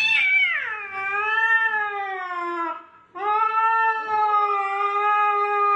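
Domestic cat yowling at another cat across a glass door: two long drawn-out yowls, the first sliding down in pitch, the second, after a short break about three seconds in, held at a steady pitch.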